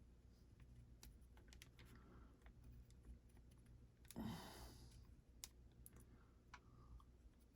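Faint light taps and scratches of a pen tracing a pattern through carbon paper onto a wooden rifle stock, with a brief louder rush of noise about four seconds in.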